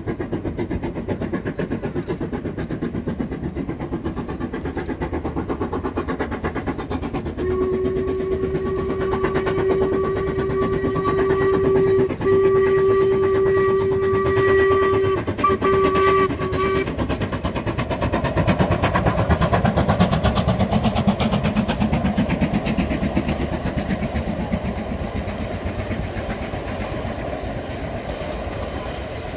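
Steam locomotive hauling a train of coaches. Its whistle sounds a long steady blast starting about a quarter of the way in, broken once, then ends in a few short toots. After that the running noise of the engine and coaches swells as the train draws near, then fades.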